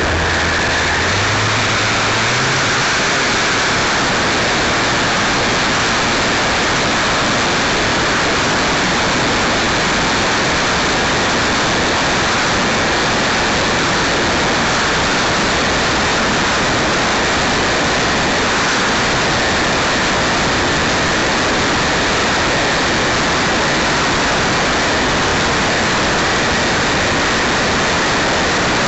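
Electric motor and propeller of an E-Flite Apprentice RC trainer plane, heard through a camera mounted on the plane. A low hum climbs in pitch over the first couple of seconds as the plane throttles up for takeoff. Then a steady, loud rush of prop wash and wind noise.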